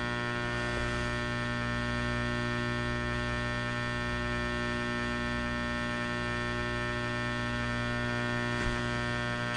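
Steady electrical mains hum with a buzzy edge, holding one pitch without change.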